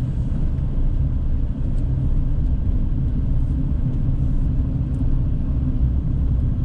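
Car driving slowly with a steady low rumble of engine and tyres, heard from inside the cabin.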